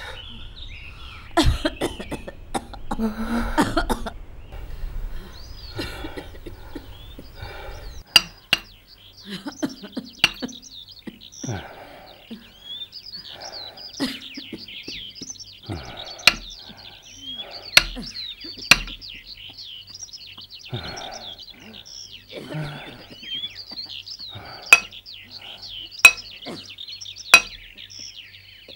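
Sharp clinks, one every second or two at irregular intervals, over steady bird chirping.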